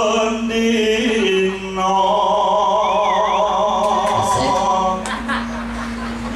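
Singing into a microphone: one voice holds long, wavering notes with vibrato over a steady low tone.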